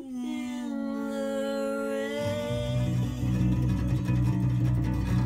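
Acoustic guitar and electric bass guitar playing the closing bars of a song. A held note dies away over the first two seconds, then the bass and strummed guitar come in strongly.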